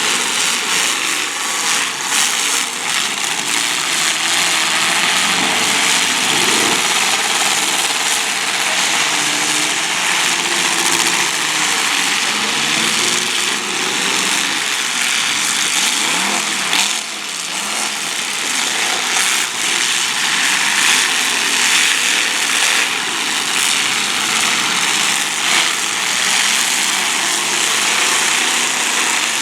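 Several demolition derby car engines running hard and revving up and down together, with a few sharp knocks from cars hitting, the clearest a little over halfway through.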